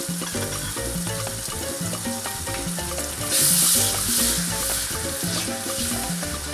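Onions, garlic and spices in lard and chicken broth sizzling in a caldero, with a spatula stirring through them from about halfway in, when the sizzle grows louder in pulses with each stroke. Background music with a steady beat plays throughout.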